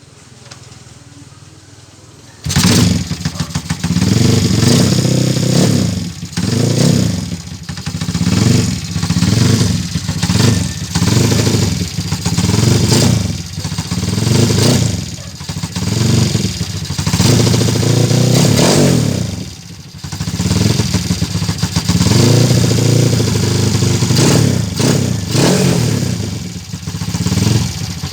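Tuned small motorcycle engine, built with a 6.8-lift camshaft, dual valve springs, a lightened flywheel and ported intake and exhaust, comes in suddenly about two and a half seconds in and is then revved up and down over and over in short blips, with a brief drop near the two-thirds mark.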